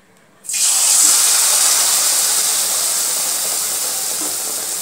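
Hot oil in a kadai sizzling as a slice of bread coated in biuli dal (urad dal) batter is lowered into it; the sizzle starts suddenly about half a second in and then eases off slowly.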